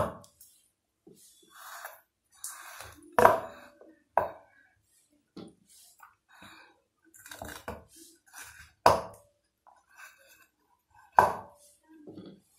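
Steamed idlis being peeled off a damp steaming cloth and set into a stainless-steel-lined casserole: cloth rustling and soft handling sounds, with four sharp knocks against the steel spread across the time.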